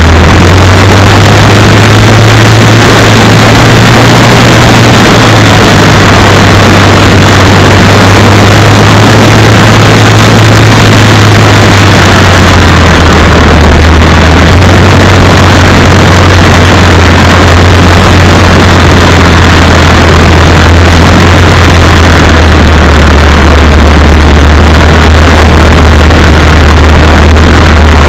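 Motor and propeller of a remote-control Cessna model in flight, picked up by the tiny onboard camera's microphone: a loud, overloaded drone with rushing wind. Its low hum steps up in pitch about half a second in and steps down again a few times later.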